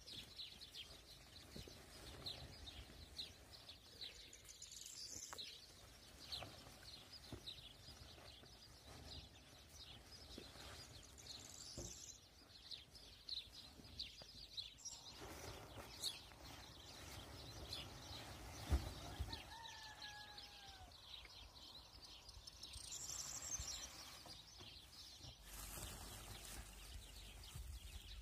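Small birds chirping over and over, faint against quiet outdoor background noise, with a few light knocks. About two-thirds of the way through comes a single short gliding animal call, lower in pitch.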